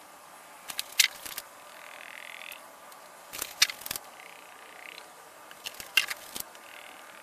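Motor oil pouring from a quart bottle into a funnel in the engine's oil filler neck. The bottle glugs in three bursts of sharp gulps as air gets back in, with a soft pouring hiss in between.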